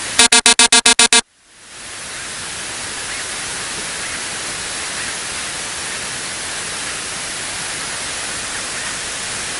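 A cockpit alert tone beeping rapidly, about eight beeps in a second, then cut off. After a brief drop-out comes the steady hiss of cabin noise in the Cessna P210 Silver Eagle turboprop in flight.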